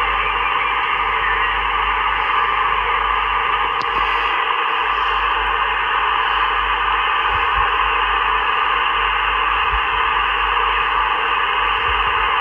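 Amateur HF radio receiver's speaker giving out a steady hiss of static and band noise, with no clear station voice coming through.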